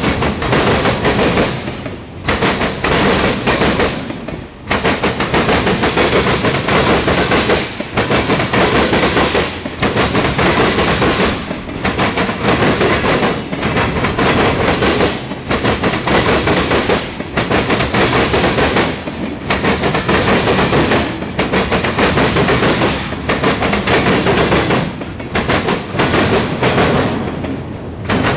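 Mixed freight train rolling past close by, its steel wheels clattering rapidly over the rail joints. The noise dips briefly every two seconds or so.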